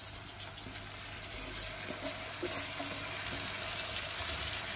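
Washed wet rice being tipped by hand from a steel bowl into a hot pan of frying chicken and carrots, over a steady sizzle with several short crackles.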